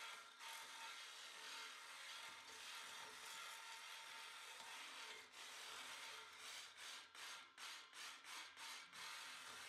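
Saw blade cutting through the seized brass ring of a radiator pipe union, faint back-and-forth strokes that become short and distinct, about three a second, in the last few seconds.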